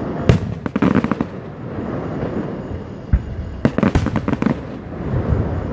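Fireworks going off: a sharp bang near the start, then bursts of rapid crackling pops about a second in and again around four seconds in, with duller single thuds between them.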